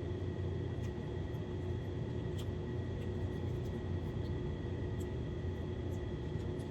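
Steady room hum from a running appliance, holding several fixed tones, with a few faint clicks over it.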